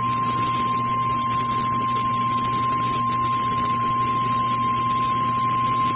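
NOAA Weather Radio 1050 Hz warning alarm tone: a single steady high-pitched tone over radio hiss and a faint low hum, signalling that a weather warning message is about to be broadcast.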